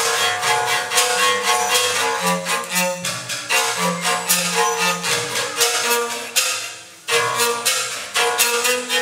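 Electric violin playing a quick series of short bowed notes, with a brief break about seven seconds in before the playing goes on.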